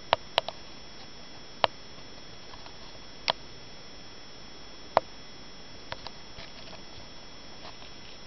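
A handful of sharp, irregular clicks and taps, five or six loud ones in the first five seconds and a few fainter ones after, over a steady hiss with a faint high whine.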